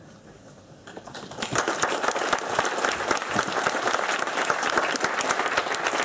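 Audience applauding: quiet for about the first second, then clapping that builds quickly and goes on steadily.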